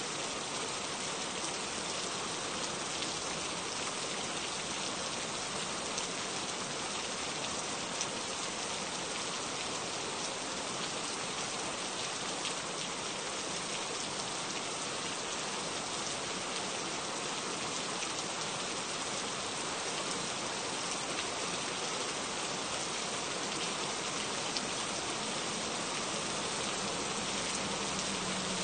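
Steady rain falling: an even hiss with scattered small drop ticks.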